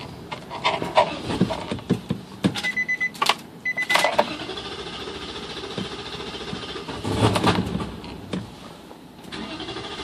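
Key clicks at the ignition of a Nissan Titan pickup, then a short burst of starter cranking about two and a half seconds in, with a high beep twice during it.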